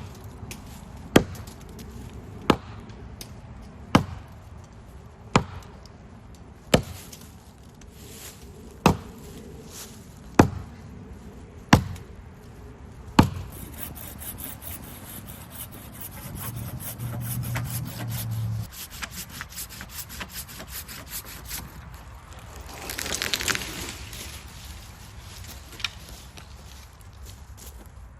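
Axe chopping into a small maple trunk: about ten sharp strokes a little over a second apart. These are followed by a quicker run of rasping strokes from a hand saw cutting the wood.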